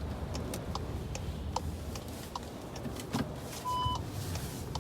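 Inside a moving car: a steady low rumble with a car's indicator clicking about every 0.8 s, and a short electronic beep just before the end.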